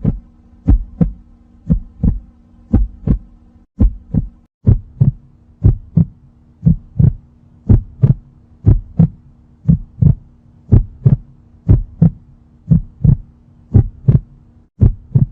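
Heartbeat sound: paired lub-dub thumps about once a second, over a low steady hum.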